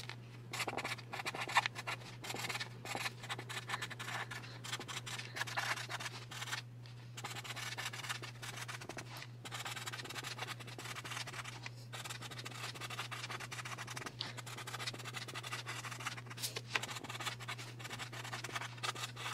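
Felt-tip marker scratching across card stock in short, irregular strokes as a note is handwritten, over a steady low hum.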